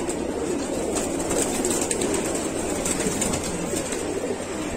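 A loft full of pigeons cooing, with wings flapping as the birds are stirred up by someone reaching in to catch them.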